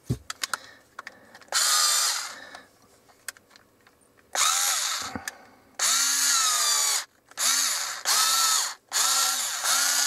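Cordless screwdriver motor spinning a large twist drill bit clamped in a keyless chuck, in about six short bursts. Each burst whines up in pitch as it starts and winds down as it stops, and the last one runs on past the end. A few sharp clicks come from the chuck being handled at the very start.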